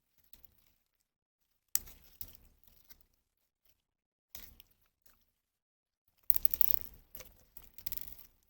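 Slime being squished and stretched by hand, giving sticky, crackling sounds in four separate bursts, the last one the longest and loudest.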